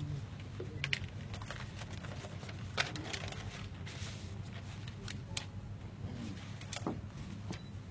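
Paper documents rustling and being handled as they are pulled from a large envelope, with scattered sharp clicks, over a steady low room hum.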